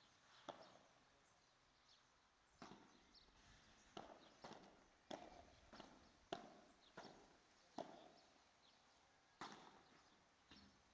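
Padel rally: a ball being hit back and forth with solid padel rackets and bouncing on the court, about ten sharp pops at irregular intervals of roughly a second.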